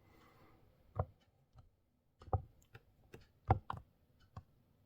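Hard plastic clicks and taps from handling a plastic action figure and its weapons: about five or six separate sharp clicks, the loudest a close pair about three and a half seconds in.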